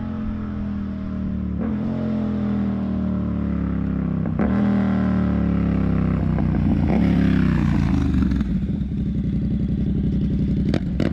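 Yamaha MT-07 parallel-twin engine running through an SC Project CR-T exhaust with the dB killer removed: the revs fall over the first few seconds, climb again around the middle, then settle to a steadier low note. A few sharp cracks come near the end.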